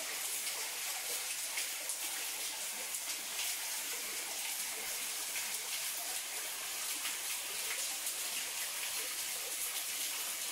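A shower of water drops falling from a rock overhang onto wet rock: a steady hiss of falling water with many small splashes.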